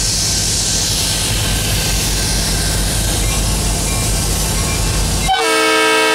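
Ann Arbor Railroad diesel locomotive approaching slowly, with its engine running and a low rumble from the train. About five seconds in it sounds its horn, a steady chord of several notes.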